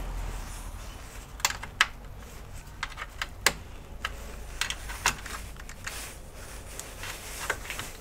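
Irregular light clicks and taps, about ten, from hands handling the all-in-one PC's rear panel and port connectors.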